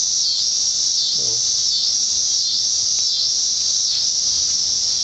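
Loud chorus of cicadas buzzing, a high-pitched drone that swells and fades in a steady wave about once a second.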